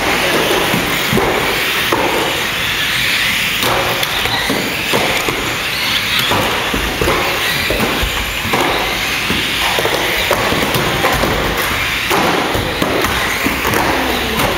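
1/12th-scale radio-controlled stock cars racing: a steady high whir of their small electric motors and tyres, with frequent short clacks as the cars knock into each other and the track rails.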